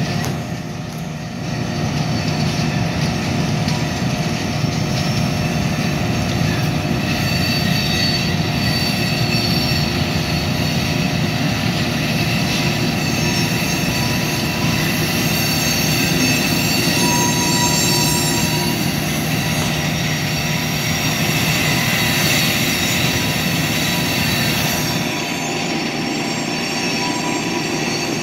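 Covered hopper cars rolling slowly, their steel wheels squealing in several steady high tones over a low rumble. The rumble drops away near the end.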